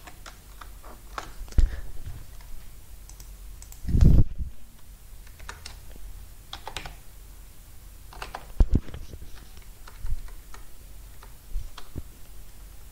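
Typing on a computer keyboard: irregular, spaced-out keystrokes with pauses between them, and two heavier dull thumps about four seconds in and again near nine seconds.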